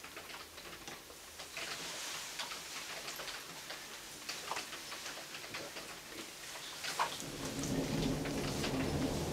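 Rain falling during a thunderstorm, with single drops ticking sharply on a surface. About seven seconds in, a low rumble of thunder builds and keeps rolling.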